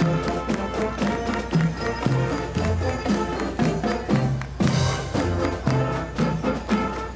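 Background music with a steady beat and bass notes, and a cymbal-like crash about four and a half seconds in.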